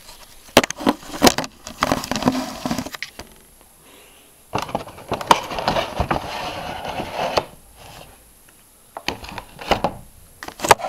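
Cardboard box and a clear plastic insert being handled as a boxed vinyl figure is taken out: rustling, scraping and sharp clicks in three spells.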